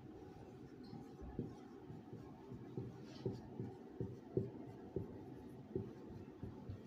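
Whiteboard marker writing on a whiteboard: irregular light taps and knocks as the strokes land on the board, the firmest a little past the middle.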